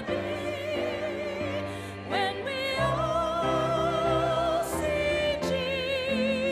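A woman singing a hymn into a microphone, holding long notes with a wide vibrato, over instrumental accompaniment with sustained bass notes and chords.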